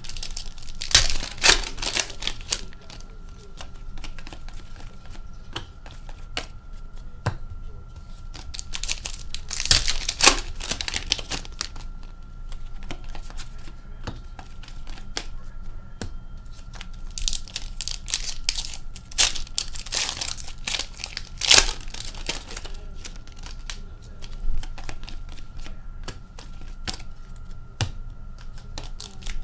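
Upper Deck Series 1 hockey card pack wrappers being torn open and crinkled, in several loud bursts a few seconds apart, with quieter rustling of cards and wrappers between.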